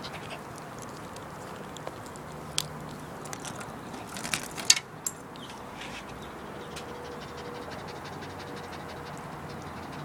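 Small dogs panting after a walk, with a few sharp clicks and scrapes around the middle, the loudest about halfway through, as they shuffle about on a woven chair seat.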